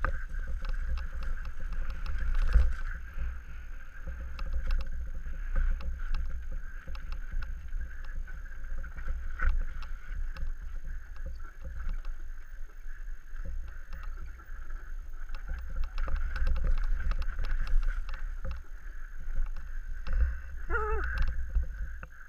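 Downhill mountain bike ridden fast over rock and heath: wind rumble on the helmet-mounted camera's microphone, with a steady rattle and clicks of the bike's chain and parts over the bumps.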